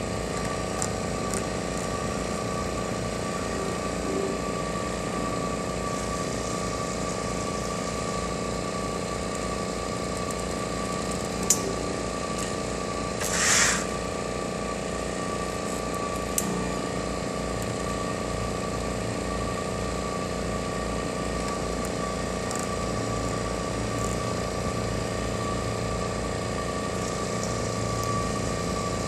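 Steady hum of a pick-and-place machine's motors and pump, with a constant tone running through it. Two sharp clicks a few seconds apart near the middle, and a short hiss lasting under a second between them.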